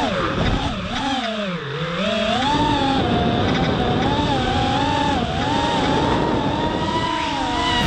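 FPV racing drone's brushless motors whining, the pitch sweeping up and down with the throttle, dropping deeply about a second and a half in and then rising again.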